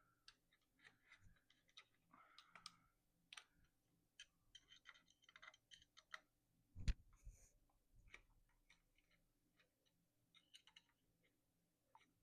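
Scattered light clicks and taps of bike parts and tools being handled, with one louder knock about seven seconds in.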